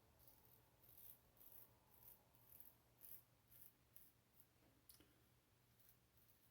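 Faint scraping of a safety razor (Above the Tie R1 with a Treet Platinum blade) cutting stubble in short strokes, about two a second.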